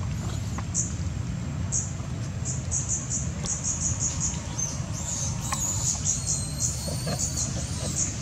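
Outdoor ambience: a steady low rumble under many short, high-pitched chirps scattered through, with a thin whistle-like tone about halfway in.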